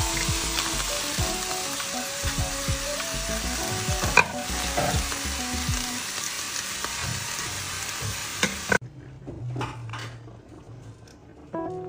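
Meat sizzling as it sears in a frying pan with mushrooms and onion: a dense, steady hiss with an occasional sharp click, the loudest about four seconds in. The sizzling cuts off abruptly about nine seconds in.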